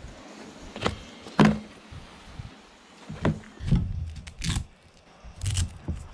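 Handling noise on an FPV racing drone: a series of short clicks and knocks as the LiPo battery and its XT60 power lead are adjusted by hand, the loudest about one and a half seconds in.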